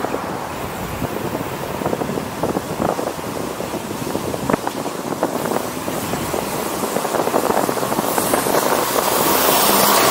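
Steady road and wind noise of a moving vehicle, with scattered small knocks and rattles, growing louder and hissier near the end.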